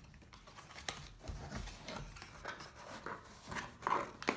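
Cardboard retail box being opened by hand: the end flap is lifted and the box turned over, with irregular scrapes, rustles and taps of card, louder near the end.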